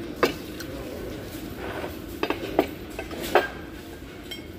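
Metal cutlery clinking against ceramic plates and bowls during a meal: a handful of sharp clinks, one early, a cluster a little past two seconds, and one more past three seconds, over a steady low hum of room noise.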